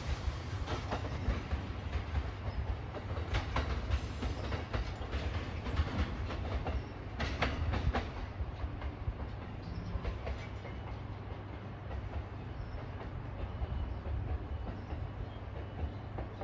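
Electric train pulling away over the rail joints: a low rumble with its wheels clacking. It fades after about halfway as the train recedes.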